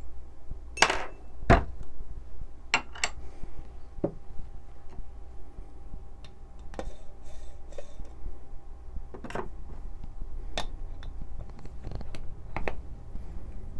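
Scattered small metal clinks and taps of espresso puck preparation: a WDT needle tool stirring grounds in a metal dosing funnel on the portafilter, then the portafilter handled and a tamper pressed into the basket. About ten separate clinks, the loudest two near the start, over a faint steady low hum.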